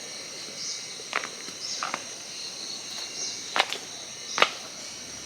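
Steady high-pitched drone of insects, with a few short sharp taps or clicks through it.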